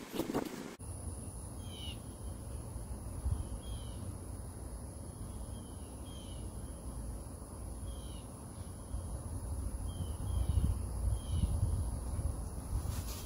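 Wind rumbling on the microphone, gusting stronger near the end, with a bird's short curved call repeating about every two seconds over a steady high-pitched whine.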